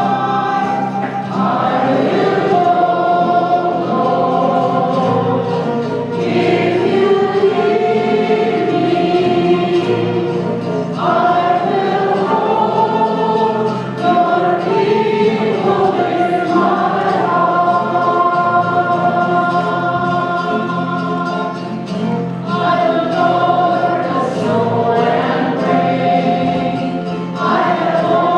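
Church choir singing a hymn, with sustained low notes held underneath the voices.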